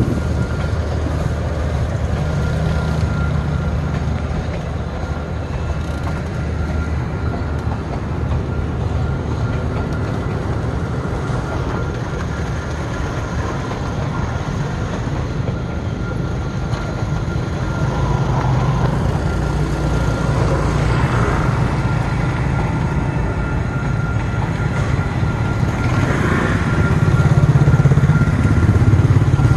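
Steady engine and road noise of motor scooters riding along a rough lane, mixed with a passenger train's coaches rolling alongside on the track. The noise grows louder near the end.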